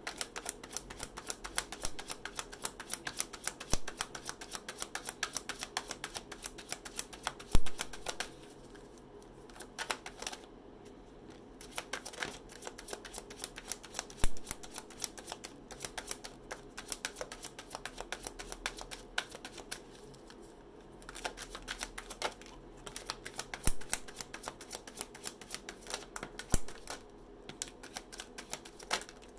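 A deck of tarot cards being shuffled by hand: runs of rapid papery clicking as the cards flick against each other, broken by short pauses, with a few louder knocks.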